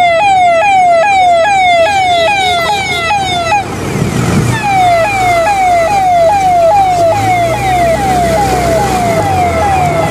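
Electronic police siren from a patrol vehicle's roof loudspeaker, sounding in quick repeated falling sweeps, about three a second. It breaks off for about a second near the middle, then resumes, with a vehicle engine running underneath.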